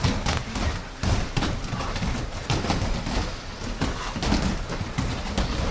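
Bare feet thudding and landing on foam grappling mats as a group runs and leapfrogs over bent-over partners: many irregular thumps and slaps overlapping, several each second.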